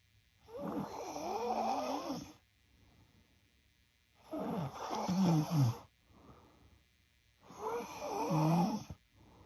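A young woman snoring in her sleep: three loud snores about three and a half seconds apart, each lasting about one and a half seconds, with faint breaths between them.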